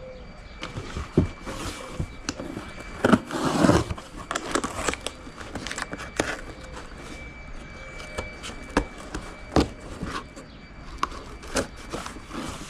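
Package being opened and handled: scattered knocks and clicks, with a longer scraping, rustling stretch about three seconds in.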